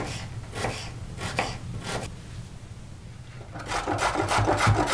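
A knife chopping onion on a bamboo cutting board, about four strokes in the first two seconds. Then, from about three and a half seconds in, a carrot is rubbed on the coarse side of a metal box grater in quick scraping strokes, about five a second.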